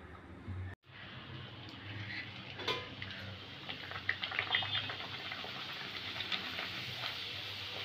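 Luchi sizzling as it deep-fries in hot oil in a metal kadai, a steady hiss starting about a second in. A metal slotted spoon clicks against the pan several times in the middle.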